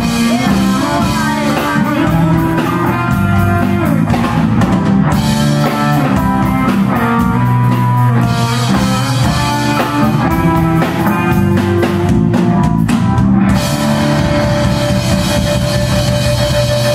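Live rock band playing: electric guitars, bass and drum kit. About thirteen seconds in the drum hits thin out and a single steady note is held.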